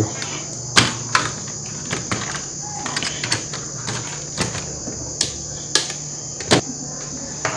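Scattered sharp clicks and taps of small parts being handled while an AMD processor is taken out of a laptop motherboard, over a steady low hum and a steady high-pitched hiss.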